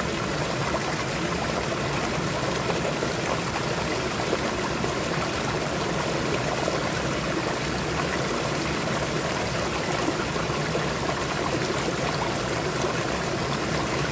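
Shallow mountain stream flowing and trickling steadily over and between rocks.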